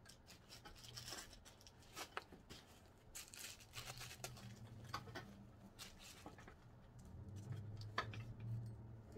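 Faint rustling and scattered light clicks of hands handling a wig cap, with a soft low hum in the background.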